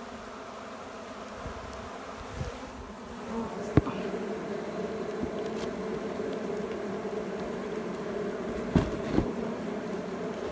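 Swarm of honeybees buzzing steadily and densely around the box they are being hived into, the buzz growing louder about three and a half seconds in. A sharp click sounds a little later, and two short knocks near the end.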